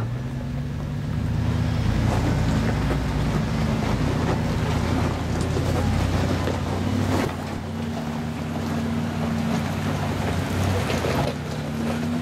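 A 4x4 pickup truck's engine working under load as it crawls up a rocky ledge, its pitch holding and then rising or falling with the throttle, with sharp cracks of rock under the tyres.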